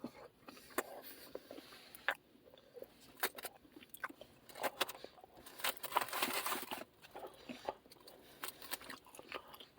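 Close-up eating sounds: a person biting into and chewing battered chips, with soft crunches, wet mouth clicks and crackles, loudest about six seconds in.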